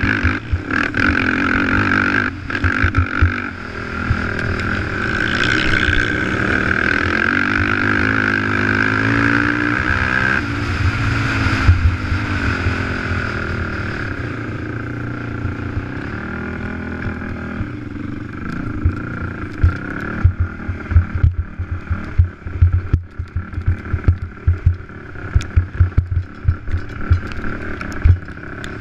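Racing quad's engine running hard under the rider, its pitch climbing and dropping as it revs and shifts. Wind rumble and knocks from the rough track become frequent in the second half.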